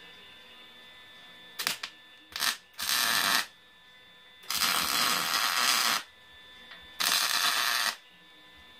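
Arc welding in three short tack-weld bursts, each a dense crackle that starts and stops abruptly: the first brief, the second about a second and a half, the third about a second. A few sharp metal clicks come just before the first burst.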